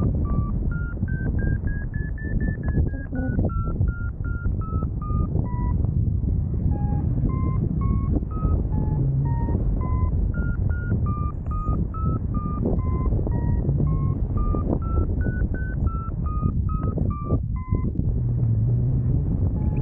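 Paragliding variometer beeping, a few short beeps a second, the pitch climbing over the first couple of seconds, dipping lower in the middle and rising again later: the vario signalling lift as the glider climbs. Heavy wind rush on the microphone runs under it.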